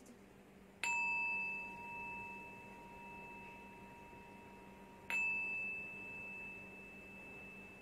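A small metal chime struck twice, about four seconds apart; each strike rings out as a clear, high tone that slowly fades.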